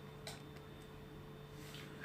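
Two faint clicks of small repair tools and phone parts being handled, about a second and a half apart, over a steady low electrical hum.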